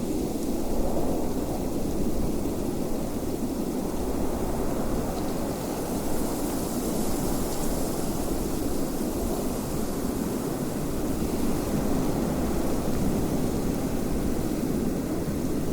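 Wind blowing steadily, a deep rushing rumble that swells and eases a little, with a faint airy hiss above it.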